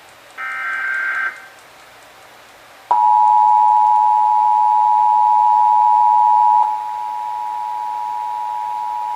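Emergency Alert System required monthly test: the last SAME header data burst, a short warbling digital screech, then about three seconds in the EAS two-tone attention signal (853 and 960 Hz) starts, steady and loud, and drops in level about two-thirds of the way through.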